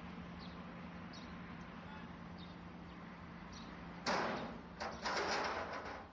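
A sudden loud scraping noise about four seconds in, in two bursts, over a faint steady hum and a few faint high chirps.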